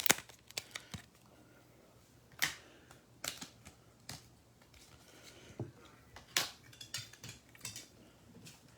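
Trading cards being handled and set down on a tabletop: a dozen or so light, irregular clicks and taps.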